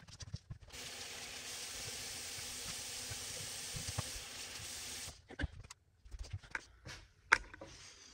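Bathroom tap running steadily into a basin for about four seconds, then shut off. A few light knocks and clicks follow.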